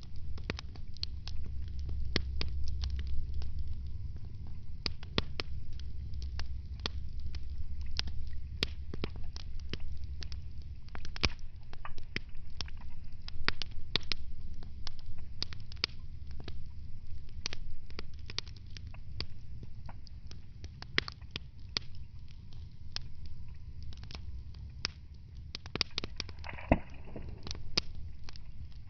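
Wood fire burning in a fireplace: frequent sharp crackles and pops over a low, steady rumble of the flames, the rumble heavier in the first ten seconds or so.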